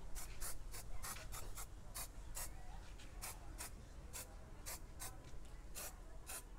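Aerosol spray can being fired in short puffs, about three quick hisses a second.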